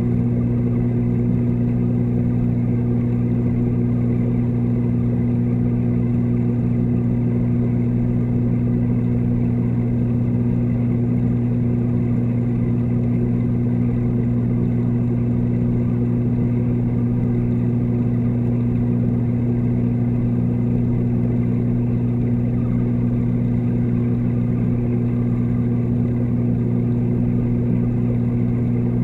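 Steady, unchanging electric hum of a reef aquarium's water pump, heard through the water by the submerged camera: a low drone with a buzz at twice mains frequency and its overtones.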